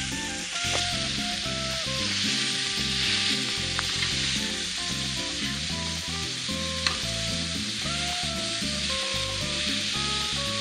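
Beef burger patties sizzling steadily in melted butter on a hot flat-top griddle, with a single sharp click about seven seconds in. Background music plays underneath.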